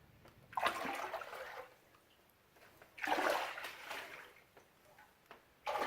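A person wading through water in water shoes: three slow, careful steps, each a sloshing splash about a second long, with a pause of a couple of seconds between them.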